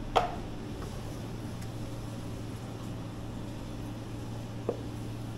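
Steady low hum of running kitchen equipment, with two sharp knocks from work at the cutting station: a loud one just after the start and a fainter one near the end.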